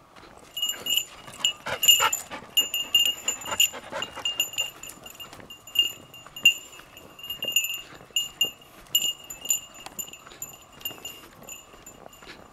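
A small bell jingling again and again at an uneven pace, over light footsteps.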